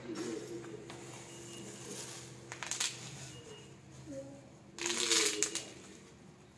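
Plastic packaging crinkling and rustling as gaming chair parts are handled during assembly, in a few bursts, the loudest about five seconds in.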